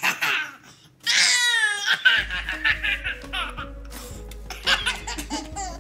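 A baby laughing in bursts: a long, wavering belly laugh that falls in pitch about a second in, then shorter giggles, over background music that comes in about two seconds in.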